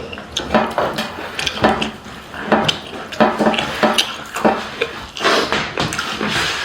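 Close-up mukbang eating sounds of rice and meat curry: wet chewing and mouth smacks with clicks against the plate, coming irregularly a few times a second.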